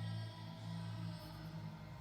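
A neighbour's loud music heard through the walls of a flat, its bass line coming through strongest, with the bass notes changing every half second or so.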